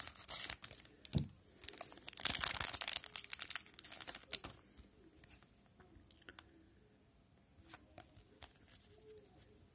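Shiny wrapper of an Upper Deck hockey card pack being torn open and crinkled, loudest about two to three seconds in. After that, only faint handling of the card stack with a few light clicks.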